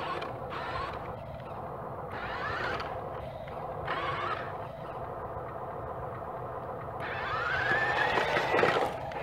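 Electric drive motors and gearboxes of a radio-controlled dump truck and front loader whining as they drive, their pitch rising and falling with the throttle, loudest in a long rising-then-falling whine about seven seconds in.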